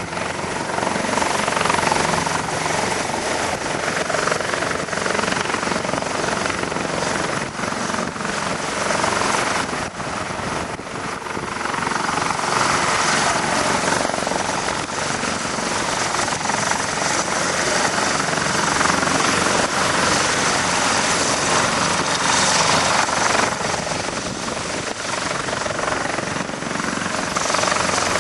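Helicopter flying, its rotor and engine noise swelling and easing in level.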